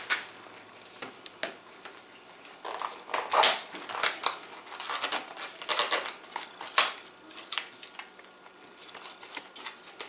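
A second SSD's retail box and plastic packaging being opened and handled: irregular clicks and rustles, busiest in the middle.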